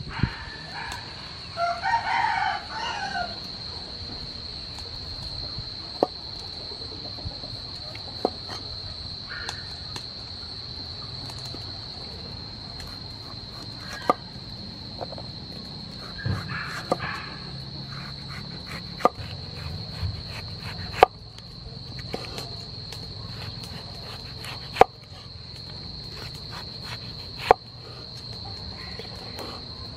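A cleaver knocks on a wooden cutting board as tomatoes are sliced, one sharp chop every few seconds, the loudest about two-thirds of the way in. A rooster crows about two seconds in and more faintly near the middle, over a steady high-pitched whine.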